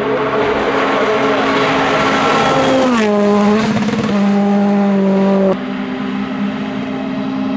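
Turbocharged four-cylinder R5 rally cars driven flat out, engines held at high revs. There is a sharp drop in engine pitch about three seconds in, and the engine note changes abruptly about five and a half seconds in as the sound jumps to another car.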